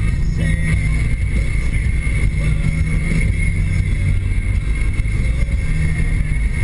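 Engine and road noise heard inside the cabin of a 2013 Nissan Sentra SR, whose 1.8-litre four-cylinder with a CVT is held at steady revs at speed: a loud, steady low rumble with a thin, steady high whine over it.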